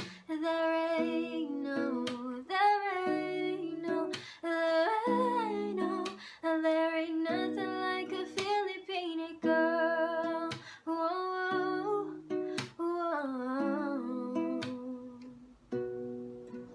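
Music: a slow wordless melody hummed over plucked string accompaniment, in short phrases with brief pauses between them.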